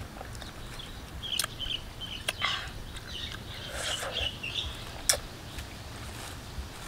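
Leaves rustling, with a few sharp snaps and clicks as small fruits are picked by hand off a leafy branch. The loudest snap comes about five seconds in. Birds chirp in the background through the middle.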